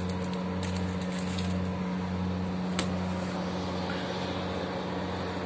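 A steady low electrical hum from a running appliance, its lower drone swelling and fading in slow pulses, with one sharp click about three seconds in.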